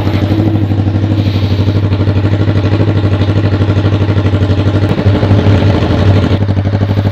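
Honda CB 500's carbureted parallel-twin engine idling with no exhaust fitted, only the bare header pipe, a loud, even, rapid beat. It picks up slightly about five seconds in.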